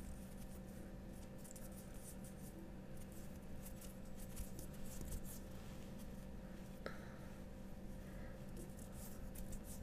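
Soft, faint scratchy rustling of hands moving close to the microphone, with one light click about seven seconds in.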